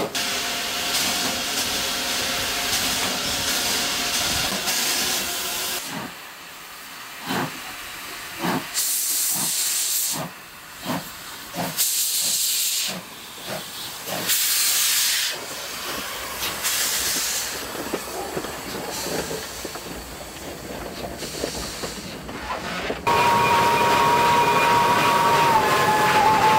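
Class 25NC steam locomotive working. First a steady steam hiss, then uneven exhaust beats mixed with loud bursts of hissing steam from around the cylinders. About 23 seconds in, the steam whistle starts a long, loud, steady note.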